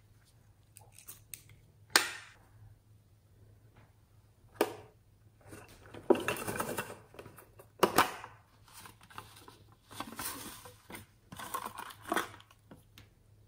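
Hands handling small toy cases: sharp clicks and clacks of a plastic compact and a metal pencil tin being snapped and opened, with rattling and shuffling of loose small contents between them. The loudest clicks come about two seconds in and again near eight seconds.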